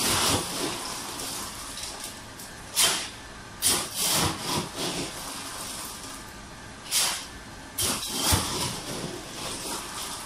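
Ice being scooped and tipped into a plastic bag: several short, noisy rushes of sliding ice, with a steady hiss underneath.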